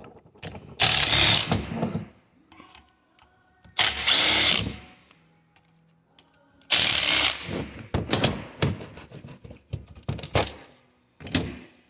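Power drill in three short runs of about a second each, backing out the screws that hold the actuator motor on a plastic coolant flow control valve. A run of clicks and taps follows.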